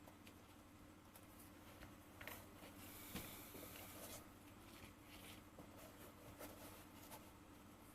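Near silence with faint handling sounds: light scratchy scrapes and small taps, including a brief scrape a little after three seconds in.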